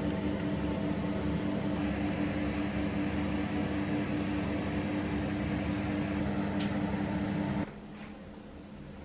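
Steady mechanical hum with a low drone, which cuts off suddenly near the end, leaving only faint room noise and a few light ticks.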